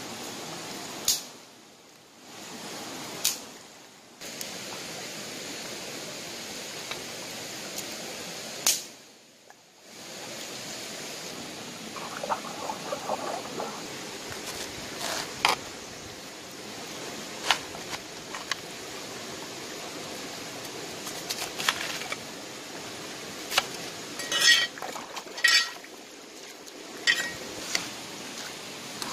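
Steady rush of a shallow stream, with scattered sharp knocks and clicks of a large knife cutting a head of cabbage on a wet rock.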